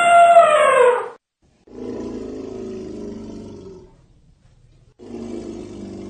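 Elephant calls. A loud trumpet ends about a second in, its pitch dropping as it fades. Two quieter, lower, rough roaring calls of about two seconds each follow.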